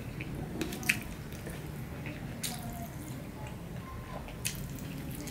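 Hand-eating sounds: fingers squishing and mixing rice and curry on a steel plate, then chewing, with a few short, sharp, wet clicks.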